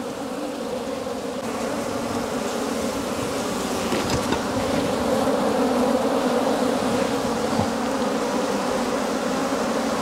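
A mass of wild honeybees buzzing in a steady drone around their opened nest as the comb is handled, growing slightly louder over the stretch.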